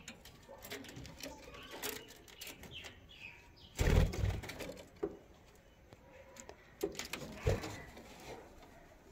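Caged pet birds chirping and calling softly. A dull thump about four seconds in and a few small clicks.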